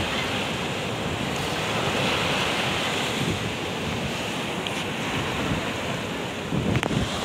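Small waves washing up and spreading over a sandy beach, a steady surf wash, with wind buffeting the microphone, gustier near the end.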